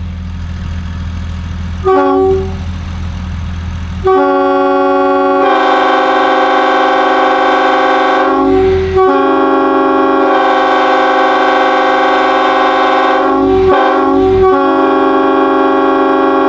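Nathan K5 five-chime locomotive air horn, a mixed-bell 'mutt' built to copy BNSF 7560's horn, sounding its chord. It gives a short toot about two seconds in, then starts a long blast about four seconds in whose chord fills out a moment later, with two brief breaks. A steady low hum runs underneath before the blast.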